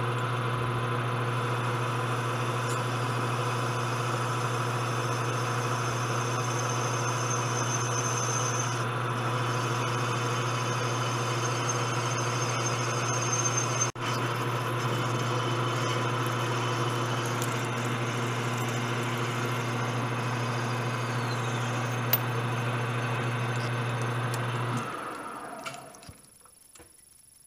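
Metal lathe running with a steady motor and spindle hum while edges are broken and the part is cut off; a faint high whine comes and goes in the first half. About 25 seconds in the lathe spins down and stops.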